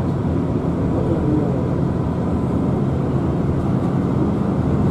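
Steady engine and road noise heard inside the cabin of a moving bus.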